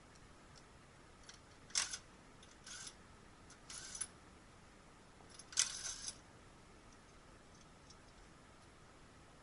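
Small metal parts or hand tools clinking and rattling in four short bursts, the sharpest about two seconds in and just before six seconds in.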